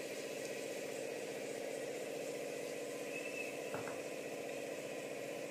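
A steady mechanical hum, as from a small electric motor running continuously, with one faint click near the end.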